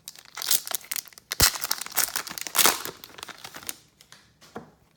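Foil wrapper of a 2017 Donruss Optic football card pack being torn open and crinkled: a dense run of crackling for about three and a half seconds, loudest around the middle, then it stops.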